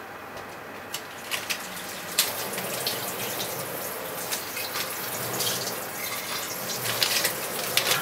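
Kitchen tap turned on about two seconds in and left running into the sink, a steady rush of water with a few clicks and knocks over it.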